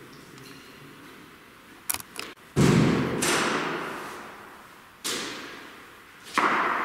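A couple of sharp clicks about two seconds in, then three heavy thuds, the first the loudest, each fading away over a second or two.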